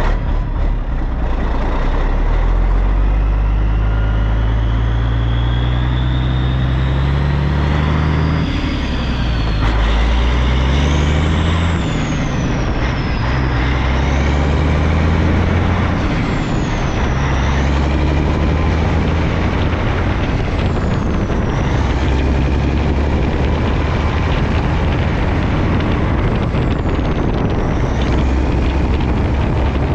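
Air-braked truck's engine pulling under load and working up through the gears: the engine note climbs, drops at each shift, and climbs again several times. A thin high whistle rises and falls above it.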